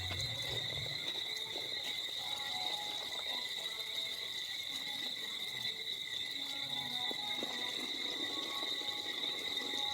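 Steady evening insect chorus, a continuous high-pitched chirring held at one pitch with no break.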